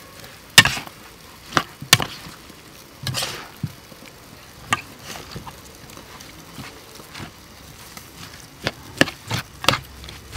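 A metal spoon knocking and scraping against a bowl as bean sprouts and flower petals are tossed, with a short rustle of the vegetables. The knocks come singly through the first half and four close together near the end.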